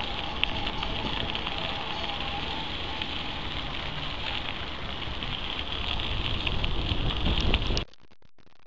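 Wind buffeting the microphone and mountain bike tyres rolling and crackling over a dirt path, picked up by a camera on a moving bike. The noise grows louder toward the end, then cuts off suddenly to a much quieter scene.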